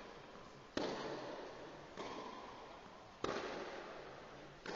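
Tennis rally on clay: four racket strokes on the ball, about one every second and a quarter, alternating louder and fainter, each ringing out in the echo of the hall.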